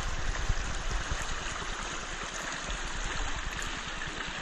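Shallow creek running over rocks and small rapids: a steady rushing of water.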